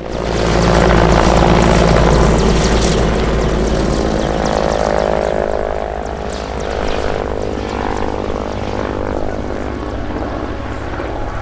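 Mil Mi-24 Hind attack helicopter flying past, with the deep rumble of its main rotor and the whine of its twin turboshaft engines. It is loudest for the first three seconds, then eases off a little.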